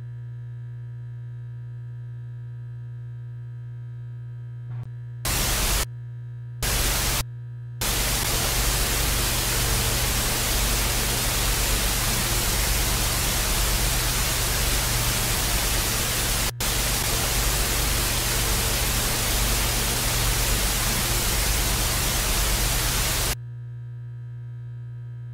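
Television static hiss: two short bursts, then a long stretch of static from about eight seconds in, with a brief dropout midway, that cuts off suddenly near the end. A steady low hum runs underneath throughout.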